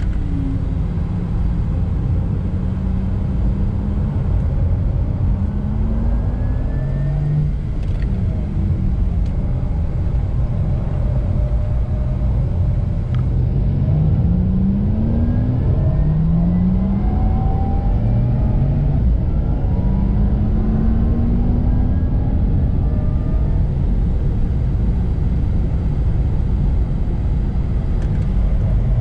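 Porsche Taycan electric car driving, heard inside the cabin: a steady low road and tyre rumble with a rising whine that climbs again and again as the car accelerates.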